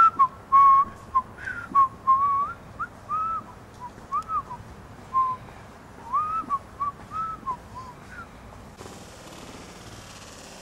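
A person whistling a loose tune of short notes, many sliding up or down in pitch. It stops about eight seconds in, and a soft steady hiss follows.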